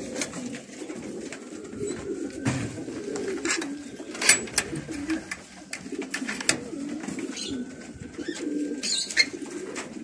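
Domestic pigeons cooing, several at once in overlapping low, wavering calls, with scattered sharp clicks and knocks.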